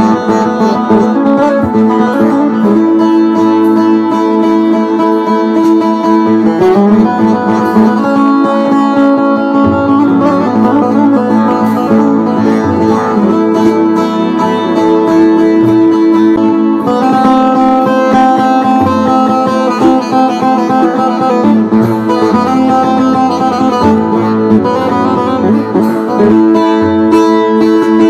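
Bağlama (saz), the long-necked Turkish lute, played solo: a busy plucked instrumental passage of a Turkish folk tune, with a steady drone note ringing underneath.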